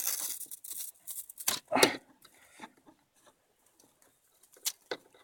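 Handling noise: a short rustle in the first second, then scattered light clicks and taps with quiet gaps between them.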